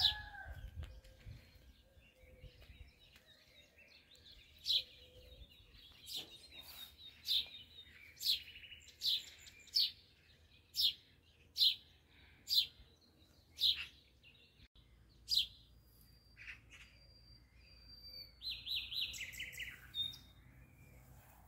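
Birds singing: a short, high chirp repeated about once a second, then a quick run of rapid notes near the end.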